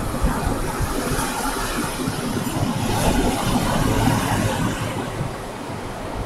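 Ocean surf washing onto the beach, a steady rush that swells about three to four seconds in, with wind rumbling on the microphone underneath.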